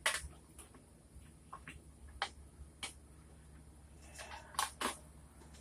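Scattered light clicks and taps of small parts and tools being handled during motorcycle reassembly, single ones spaced about a second apart, then a quick cluster about four seconds in.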